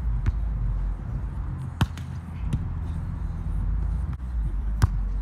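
A volleyball being played on grass: four sharp slaps of hands and forearms striking the ball, spaced about a second or more apart, over a steady low rumble.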